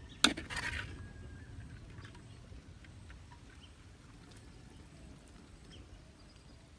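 A single sharp click about a quarter second in, followed by a brief rustle, then faint quiet background with a low rumble and a few tiny ticks.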